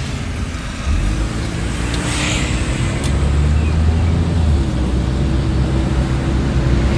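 Motor vehicle running, a low engine rumble with road noise that grows louder about a second in.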